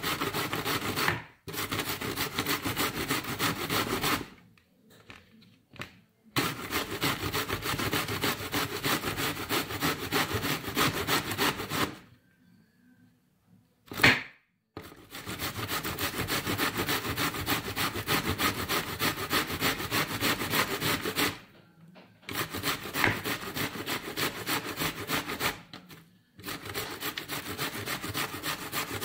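Zucchini grated on a stainless steel box grater: runs of fast rasping strokes a few seconds long, with short pauses between them. One sharp knock, the loudest sound, comes about halfway through.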